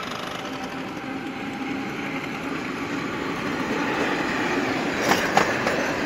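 Vintage green HÉV electric suburban train approaching and passing close by, its running noise growing steadily louder. Several sharp wheel clacks come about five seconds in as it rolls past.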